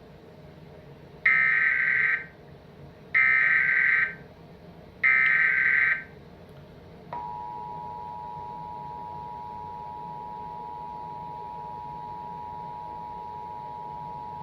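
Emergency Alert System alert: three one-second bursts of raspy digital SAME header data tones, about two seconds apart, then about seven seconds in the steady two-tone EAS attention signal begins and holds.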